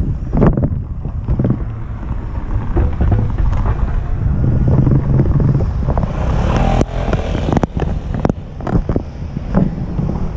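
Wind buffeting the microphone over a steady low rumble of travel along a paved road, with scattered knocks and jolts. A motorcycle passes about six seconds in.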